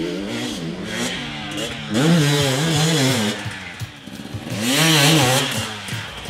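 KTM 250 XC-W single-cylinder two-stroke dirt bike engine revving up and down as it is ridden, its pitch climbing and dropping again and again, with two harder pulls, about two seconds in and about five seconds in.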